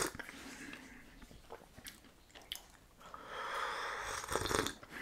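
A person slurping sips of tea from a mug: one sip breaks off right at the start, then a longer slurp comes about three seconds in, with faint mouth clicks between.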